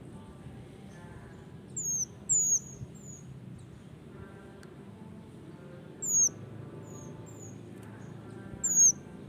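Male minivet calling: short, thin, very high-pitched downslurred whistles repeated every second or so, four of them louder than the rest.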